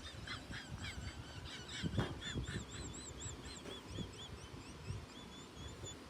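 Faint bird calls: long runs of short, high, arched chirps, several a second. A soft bump comes about two seconds in.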